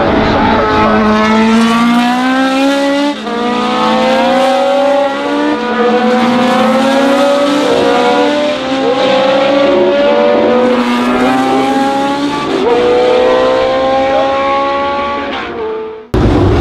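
Historic racing car engines accelerating hard through the gears, their pitch climbing and dropping back at each upshift, with more than one car heard at once. The sound cuts off abruptly near the end.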